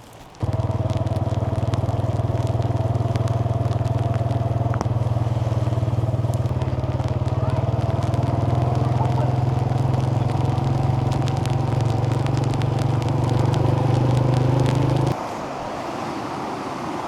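Motor vehicle engine running steadily while moving, with a faint whine that slowly rises in pitch; it cuts off suddenly near the end.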